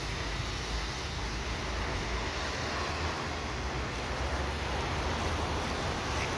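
Steady traffic noise on a wet street: an even hiss over a low, uneven rumble.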